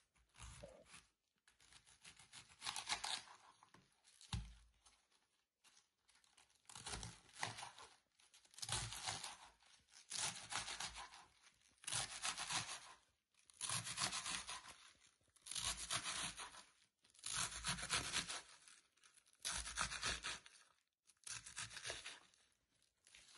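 Kitchen knife slicing a savoy cabbage finely on a wooden cutting board: a crisp, crunching rasp with each stroke through the leaves, about one stroke every two seconds.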